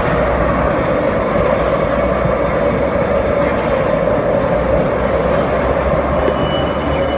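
Steady, loud din of factory production machinery running continuously on a hot-sauce packing line.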